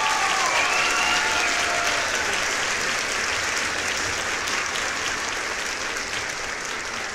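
Crowd applauding, with a few drawn-out cheers in the first couple of seconds; the applause slowly dies down.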